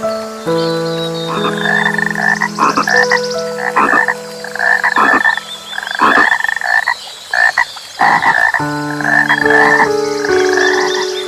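A frog croaking in a run of short calls, one or two a second with pauses, over soft background music of held chords.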